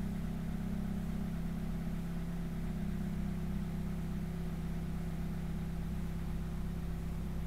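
Ferrari F430's 4.3-litre V8 idling steadily while stopped in traffic, heard from the open cockpit.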